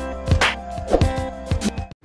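Background music with a beat and held tones, cutting off suddenly near the end.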